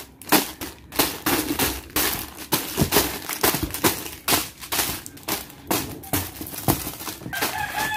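Plastic snack packs and sachet strips crinkling and rustling, with light knocks against a cardboard box, in irregular bursts as groceries are packed back into it.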